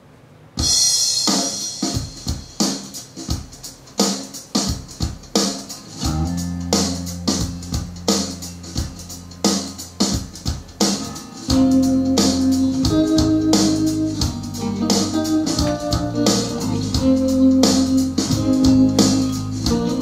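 Instrumental intro of a song played through a pair of home-built two-way loudspeakers. It starts suddenly about half a second in with sharp drum hits, a sustained bass line joins about six seconds in, and more pitched instruments fill in from about eleven seconds.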